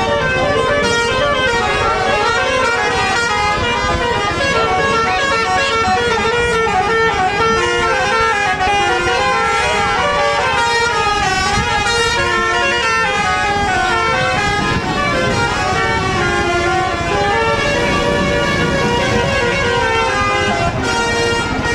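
Bus telolet horn, a bank of air-horn trumpets, playing a fast tune of stepped notes that change pitch every fraction of a second, several horn tones sounding together.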